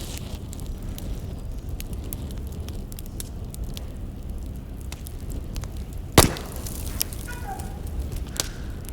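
Wood fire crackling: a steady low rush with scattered small pops, and one loud sharp snap about six seconds in.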